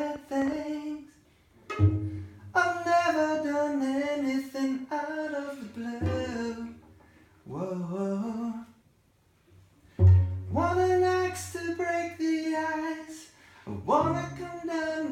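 A man singing from a lyric sheet to a small string ensemble of violins and cello, in phrases broken by two short pauses, with a low string note under the start of each new phrase.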